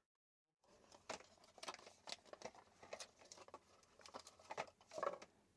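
Faint handling noise of cardboard packaging and a coiled charger cable: scattered small rustles, crinkles and light clicks. Dead silence for about the first half second.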